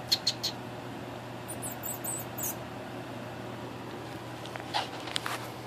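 Pet rodent screaming: short, very high-pitched squeaks in three bursts, at the start, about two seconds in and near the end.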